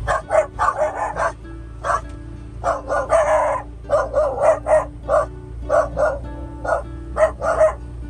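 Dogs barking and yipping excitedly in quick runs of short, sharp barks, inside a moving vehicle's cab with a steady low engine rumble underneath.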